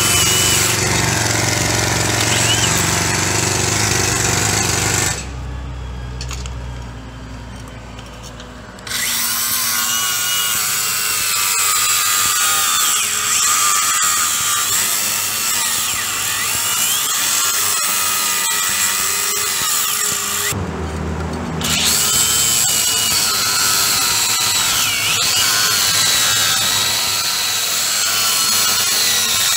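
Cordless angle grinder cutting through a perforated square steel sign-post anchor flush with the concrete, its whine rising and falling as the disc bites. The grinder pauses twice, about five seconds in and again around twenty-one seconds in.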